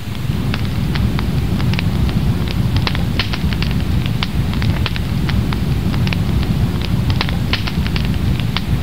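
Wood campfire crackling, with many sharp irregular pops over a steady low rumble.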